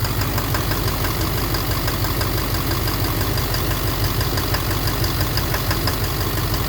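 Duramax LMM 6.6-litre V8 turbodiesel idling cold in gear with a steady, regular knock over the engine note, which the speaker calls so loud. The owner suspects an injector or a cracked flexplate, possibly bottom end.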